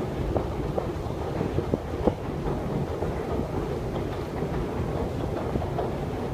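Long metro escalator running: a steady low rumble with irregular clicks and clacks from the moving steps and machinery.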